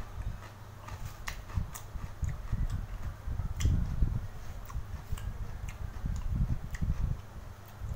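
Close-up eating sounds: a man chewing and sipping from a bowl, with many small wet mouth clicks and smacks and irregular low bumps, the loudest about halfway through.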